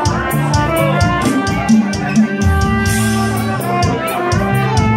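Trumpet playing a melody of held notes, accompanied by guitar and drums with a steady beat.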